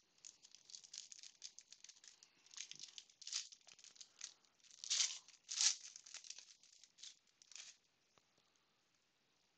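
Foil trading-card pack wrapper being torn open and crinkled in the hands: a dense run of crackling, loudest about five seconds in, that stops about eight seconds in.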